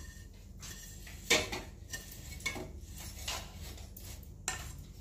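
A steel spoon scraping and knocking against a nonstick frying pan and a steel plate as roasted vermicelli is tipped out onto the plate, with several sharp clinks, the loudest about a second in.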